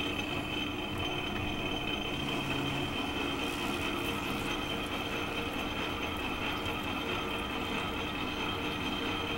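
Metal lathe running while a parting tool cuts off an aluminium silencer end cap under coolant: a steady mechanical hum with a steady high whine over it.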